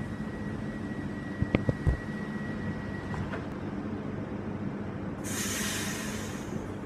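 Z 50000 Francilien electric train standing at the platform before departure, its equipment giving a steady hum, with a steady high tone that stops about three seconds in. A few knocks come near two seconds in. About five seconds in there is a hiss of compressed air lasting about a second and a half.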